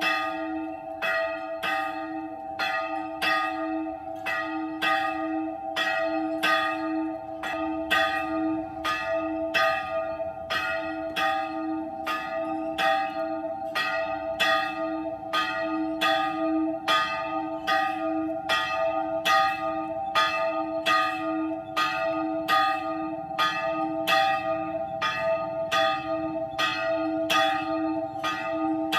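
A single church bell rung over and over in an even rhythm, about three strikes every two seconds. Its low hum carries on between strikes.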